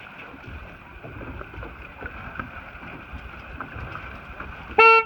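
Wind and water noise aboard a sailboat, with one short, steady horn blast near the end.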